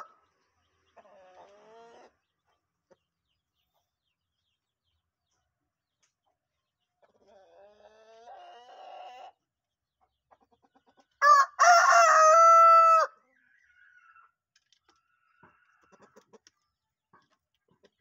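Rooster crowing once, loud and drawn out for about two seconds, about eleven seconds in; the owner likens its voice to that of a contest crowing chicken. Fainter crowing from farther off comes about a second in and again around seven to nine seconds.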